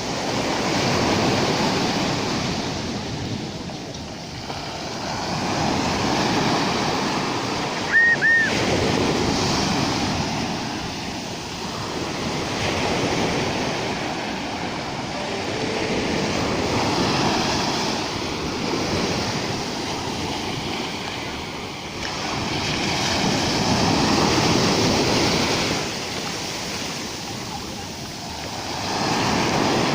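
Rough sea surf breaking and washing on the shore, swelling and falling every few seconds. A brief double high chirp sounds about eight seconds in.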